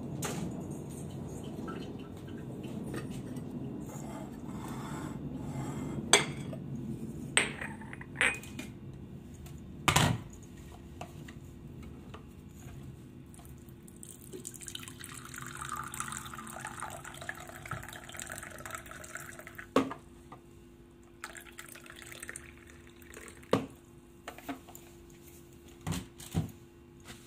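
Kitchen handling sounds: a few sharp clinks of crockery, then, about halfway through, tea poured in a stream from a pot into a mug for several seconds, followed by more light clinks.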